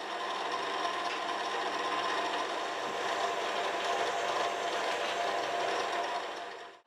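TV-4 benchtop metal lathe running steadily while a 20 mm twist drill bores into a spinning brass workpiece, a machine hum with drilling noise. It stops abruptly near the end.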